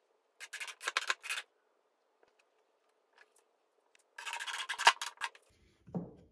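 DeWalt 20V cordless drill/driver driving screws into wooden boards: two short bursts of grinding and creaking, about a second each, the second ending in a sharp click.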